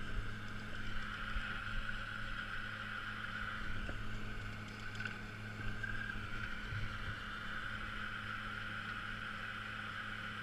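A steady low hum with a steadier, higher whine above it, and light wind noise on the microphone.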